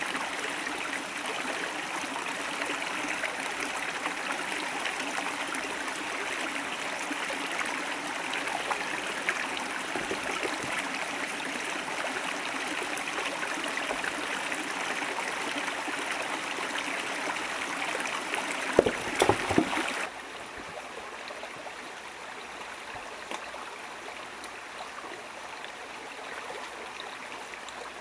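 River water flowing and rushing steadily. About two thirds of the way through there are a few sharp knocks, and then the water sound suddenly drops to a quieter level and carries on.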